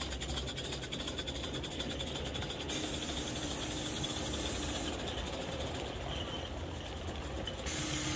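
16mm-scale live-steam model locomotives: a rapid, even chuffing of exhaust beats, broken by a steady hiss of escaping steam about three seconds in for about two seconds, and again near the end, where it is louder.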